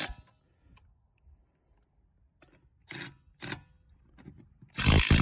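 Cordless brushless 1/2-inch impact wrench (Craftsman V20) breaking loose a vehicle's lug nuts. There are a few small clicks and two short blips about three seconds in, then a loud burst of hammering near the end.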